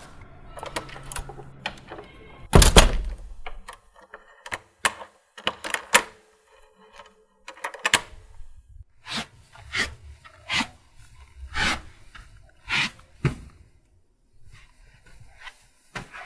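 A series of knocks and thuds with a room echo: one heavy thump about three seconds in, scattered light clicks, then a run of knocks about once a second later on.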